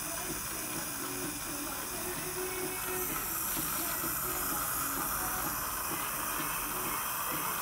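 Dental saliva ejector hissing steadily as it sucks air and saliva in the patient's mouth, getting louder about three seconds in.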